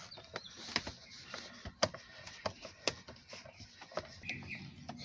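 Irregular light clicks and knocks of a screwdriver and fingers working on the plastic steering column cowling of a car, as the screws underneath are taken out.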